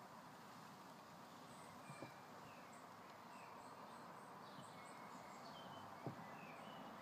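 Near silence: faint outdoor ambience with scattered distant bird chirps through the middle, and two soft knocks, about two and six seconds in.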